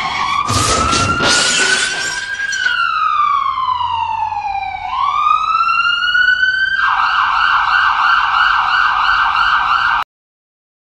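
Emergency vehicle siren: a slow wail that rises, falls and rises again, then switches about seven seconds in to a fast warbling yelp before cutting off suddenly. A loud rush of noise runs under the siren in the first couple of seconds.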